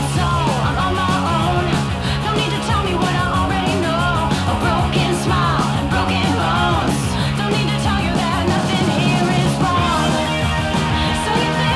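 Background rock music with drums, a steady bass line and a lead line bending in pitch.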